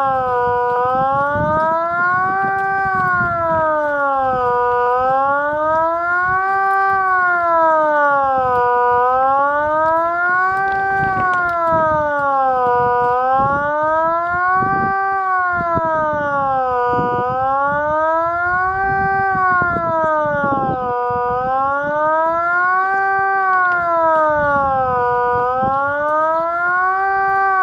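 Kockum Sonics ET 30/3 civil-defence siren sounding the Swiss general alarm signal: a loud wail that rises and falls evenly, about once every four seconds.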